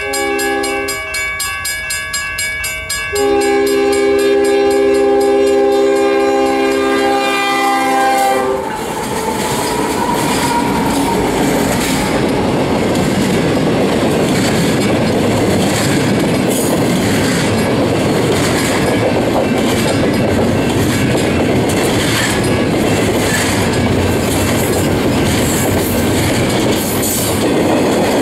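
Diesel locomotive horn sounding a chord, a short blast and then a long one of about five seconds that cuts off as the lead GE locomotive passes. Then the train rolls by: the steady rumble of double-stack container well cars with repeated wheel clicks over the rail joints.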